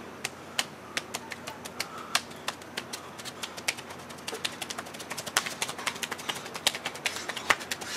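A barefoot dancer's steps and stamps on stone paving: sharp, irregular slaps a few a second, coming thicker in the second half.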